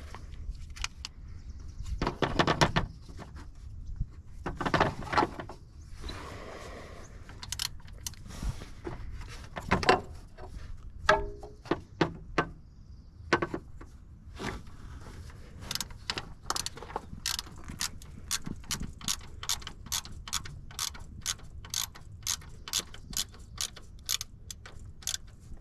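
Stubby ratchet wrench turning a fastener. Scattered metal clanks and handling sounds at first, then from about midway an even run of ratchet clicks, about three a second.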